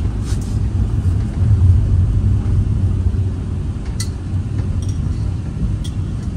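Steady low rumble of a van's engine and road noise, heard from inside the cabin while driving, with a couple of faint ticks near the end.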